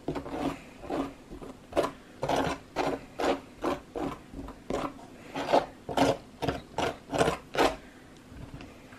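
A butter knife spreading frosting over cinnamon rolls on a plate: short scraping strokes, about two a second, that stop a second before the end.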